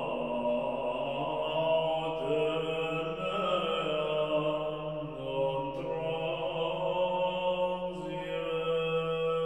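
Background music of slow chanting voices: long held notes that move to a new pitch every second or two over a steady low drone.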